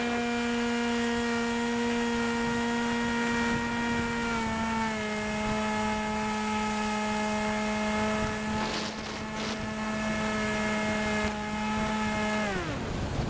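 Motor of a Wild Hawk RC airplane running at a steady high pitch, heard from a camera on board with wind rushing past the microphone. The pitch steps down slightly about four and a half seconds in, and near the end the motor winds down quickly, leaving wind noise.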